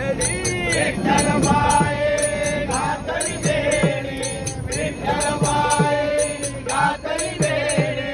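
Group of men singing a Marathi bhajan together in long held lines. Small brass hand cymbals (taal) keep a steady, rapid clicking beat, and a hand drum plays low strokes that bend down in pitch.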